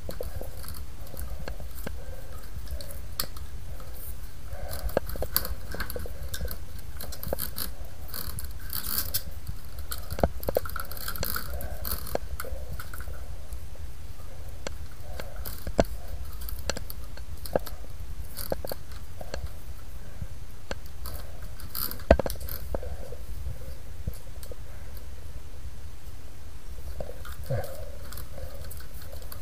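Close handling noise from gloved hands working a drain inspection camera's coiled steel cable and its cases: rustling, scraping and scattered small clicks, with one sharper click about two-thirds of the way through, over a steady low rumble.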